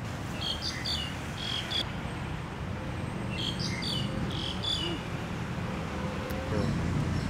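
High-pitched chirping in two short bursts of several chirps each, about a second in and again three to five seconds in, over a steady low background hum.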